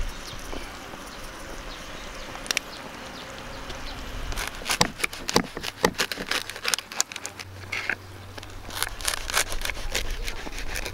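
Serrated knife sawing through a crusty baguette on a wooden board, the crust crackling and crunching in quick irregular strokes from about four seconds in.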